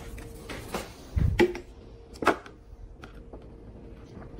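Handling noise as a paper manual is picked up and opened over the battery case: a dull thump a little over a second in, then a couple of sharp clicks and small rustles, over a faint steady hum.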